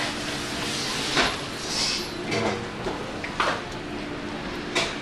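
Kitchen clatter: a few short knocks, like things being set down or a cupboard or drawer moving, over a steady background hiss and hum.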